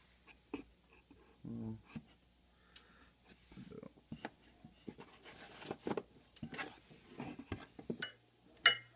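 Handling noise of a TIG torch and its hose being moved about and lifted out of a cardboard box: scattered clicks, knocks and rustles, thicker in the second half, with one sharp ringing click near the end.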